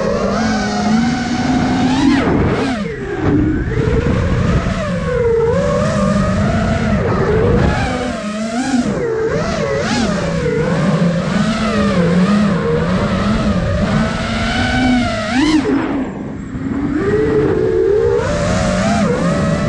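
Motors and propellers of a 5-inch FPV quadcopter whining, the pitch rising and falling constantly with the throttle. There are sharp upward sweeps about two seconds in and again near the end, with rushing wind underneath.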